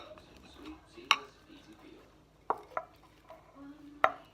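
Utensils clinking against a dish: four sharp, short clinks, one about a second in, two close together midway and one near the end.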